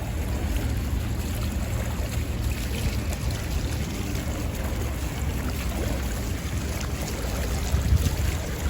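Wind blowing across the microphone, a steady low rushing noise that rises a little near the end.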